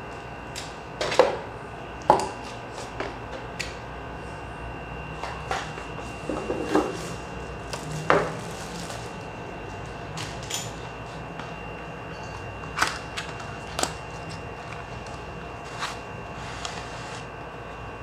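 Handling noises from unboxing a mechanical keyboard: scattered knocks, taps and short rustles of the cardboard box, plastic wrap and foam packing being moved, over a steady low background hum.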